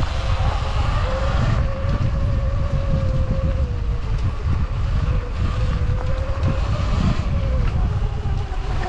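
Sur-Ron electric dirt bike riding along a dirt trail: a steady motor and drivetrain whine at a middle pitch that drifts up and down with speed, over a heavy low rumble with a few small knocks.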